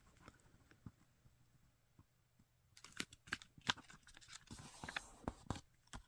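Origami paper being folded and creased: nearly quiet at first, then from about three seconds in a run of faint, sharp crinkling clicks and rustles as the paper is handled and pressed flat.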